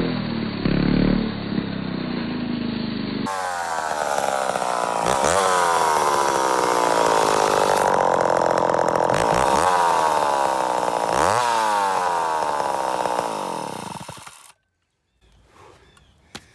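Gasoline chainsaw running at high revs while cutting hard black locust, its engine note sagging and then climbing sharply three times as it bogs in the wood and frees up. It stops abruptly near the end. The operator thinks the saw has run out of bar oil.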